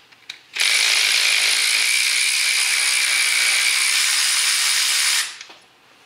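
Cordless electric ratchet running steadily for about four and a half seconds, spinning a loosened spark plug out of the cylinder head. It starts about half a second in and stops abruptly, with a few light clicks before and after.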